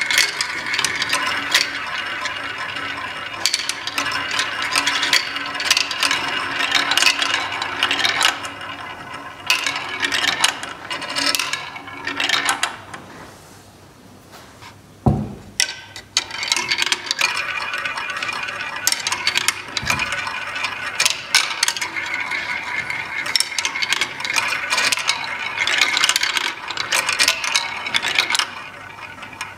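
Balls running down the tracks of a ball drop toy: a dense, continuous clatter of rapid clicks and rattles. It eases off briefly about halfway, then comes one heavier knock.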